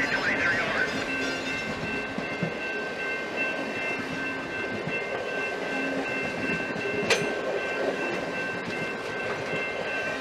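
Holiday-light-decorated freight cars of a train rolling past at speed, wheels clicking and rumbling over the rails, with a steady high-pitched ring over the top. One sharp crack comes about seven seconds in.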